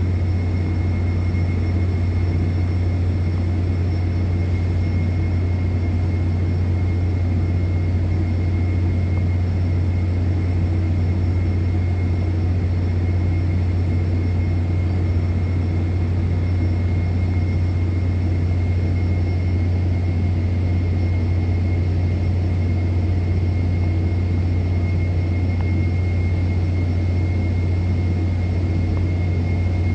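Steady, unbroken low drone of an offshore oil and gas platform, from its running machinery and burning gas flare, with a faint constant high whine over it.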